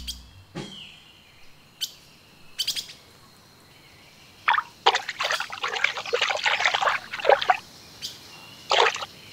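Birds chirping, with water splashing in a dense stretch from about five seconds in to about seven and a half seconds, and once more near the end.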